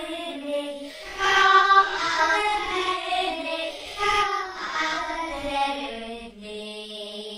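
A voice singing a slow, chant-like melody in long held notes, ending on a lower note held for about a second and a half before it stops.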